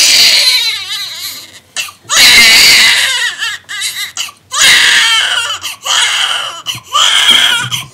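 Newborn baby crying hard: about four long, loud wails with short pauses for breath between them.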